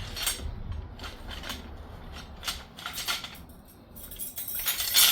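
Balloon shelf segments being fitted together by hand: a series of clicks, knocks and rattles, busier near the end.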